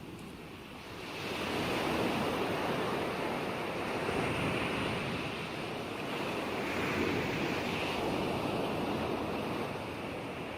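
Ocean surf: a short lull, then a wave swells about a second in and the rushing wash carries on, easing a little near the end.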